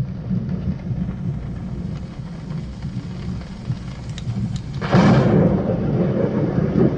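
A thunderstorm recording played through a Pioneer SX-3400 stereo receiver and a pair of bookshelf speakers, used as a test signal: steady rain and low rumbling thunder, with a loud crack of thunder about five seconds in.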